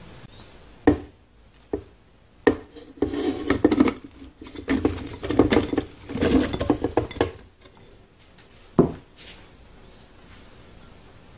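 Cut-up chunks of food tipped from a bowl into a plastic blender jar, clattering in three rushes, with a few single knocks of kitchenware before and after. The blender motor is not running.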